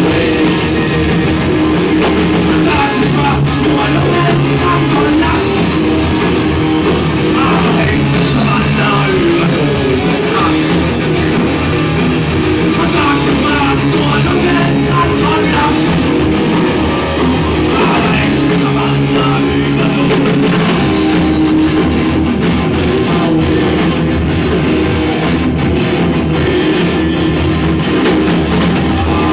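Live rock band playing loud, with distorted electric guitars and bass over drums, and a singer's voice coming in at times.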